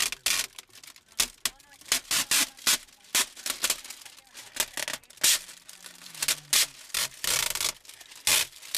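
Window tint film being peeled off car glass: a run of irregular crinkling, tearing rasps as the plastic film is pulled away.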